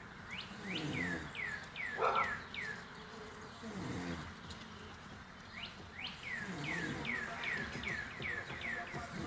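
A man snoring, with slow, low, rasping breaths about every three seconds. Over it come two runs of high, falling chirps, about four a second, and a short sharp noise about two seconds in.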